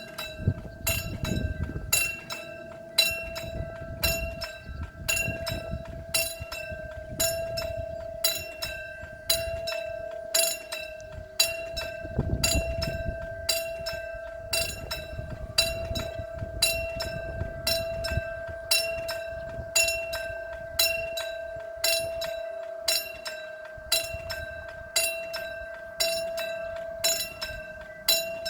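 Railroad level-crossing warning bell ringing in a steady, even rhythm, its ringing tone carrying on between strokes: the crossing signalling that a train is approaching. Low rumbling comes and goes under it.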